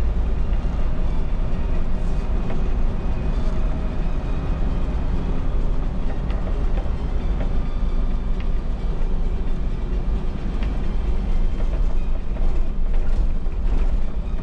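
MAN NL283 Lion's City city bus driving along at road speed, heard from the driver's cab: steady diesel engine and road rumble.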